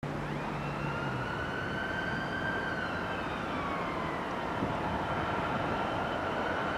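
Class 66 diesel-electric locomotive running slowly with a low rumble, overlaid by a high, thin whine that slowly sinks and rises again in pitch.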